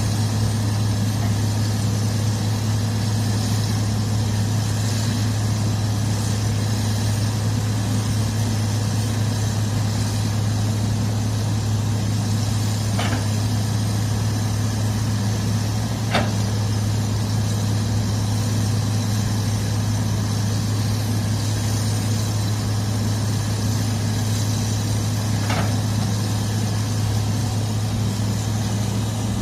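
Heavy equipment's diesel engine running steadily at an even, low pitch, with three brief faint clicks: one about halfway through, another a few seconds later, and one near the end.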